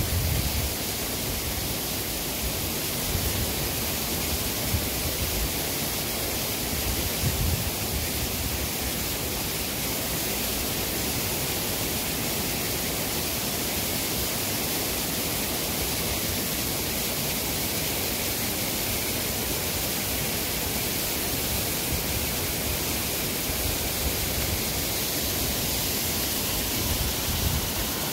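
Waterfall: water sheeting over a flat rock ledge and cascading down, a steady rushing hiss. A few brief low rumbles come through, near the start, about a quarter of the way in, and near the end.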